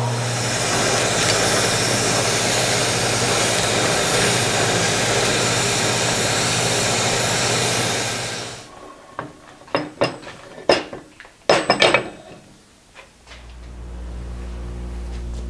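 Vertical milling machine with a half-inch end mill cutting a slot through a metal plate: a steady, noisy cutting sound that stops about eight and a half seconds in. A few sharp clicks and knocks follow, then a low steady hum near the end.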